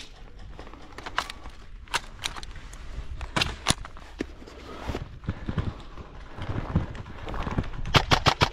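Scattered sharp clicks and knocks from an AR-style airsoft rifle being handled and its magazine changed. Near the end comes a quick string of sharp cracks of airsoft gunfire.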